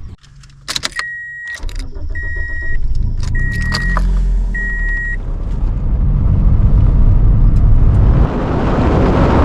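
Inside a car: a door shuts, keys rattle, and the car's warning chime beeps four times as the engine starts. The engine then runs, and road noise grows louder as the car drives off.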